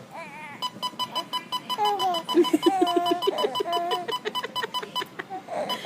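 Electronic beeping, a fast train of short beeps at about five a second, starting about half a second in and stopping near the end. Over it a baby coos and then laughs in short rhythmic bursts.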